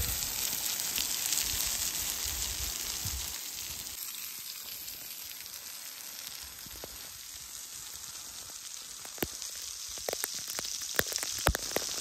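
Waterfall spilling onto rocks, a steady hiss of splashing water. From about nine seconds in, sharp ticks of spray drops land more and more often toward the end.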